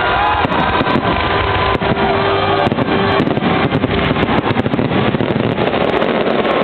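Fireworks going off in a dense, continuous barrage: many shell bursts and crackling reports overlapping into one steady, loud rumble, as in a display's finale.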